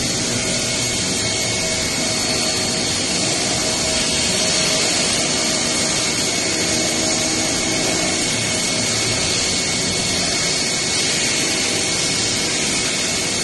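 Industrial machine running steadily: a constant noise with a few steady high whines over it.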